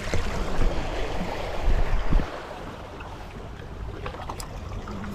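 Sea water washing against the shore, a steady hiss of surf, with heavy low buffeting rumbles during the first two seconds.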